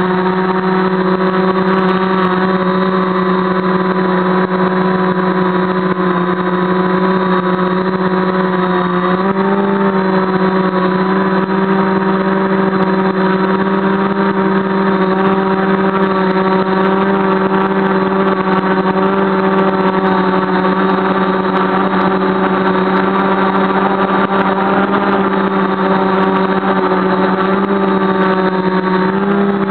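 Multirotor's electric motors and 10x4.7 propellers droning steadily, heard from a camera on the craft: a loud, even hum with a whine of overtones. The pitch shifts slightly about nine seconds in and again near the end as the motor speeds change.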